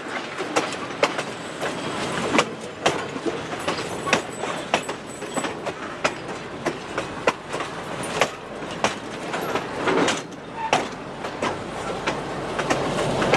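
Passenger coaches rolling slowly past on jointed track, the wheels clicking over the rail joints every half second or so. A diesel locomotive's engine grows louder near the end as it draws level.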